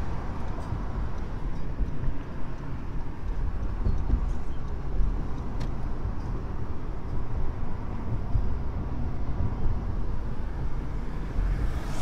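Steady low road rumble of tyres and engine, heard inside the cabin of a moving Honda car.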